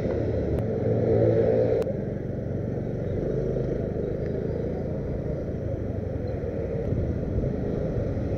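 Motorcycle engine running while riding, with road and wind noise; it pulls harder and louder for about a second early in the ride, then settles into a steady drone.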